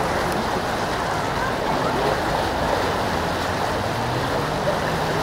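Steady rushing of the flooded Seine's fast brown water churning around a stone bridge pier, an even noise with no distinct events.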